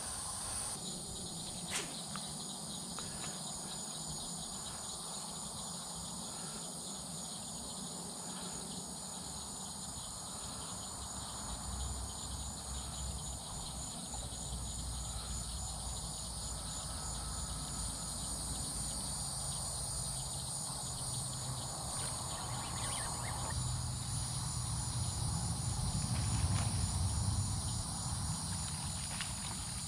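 Evening insect chorus: a steady high trill with a fast, even pulse. Under it, a low rumble swells in the second half.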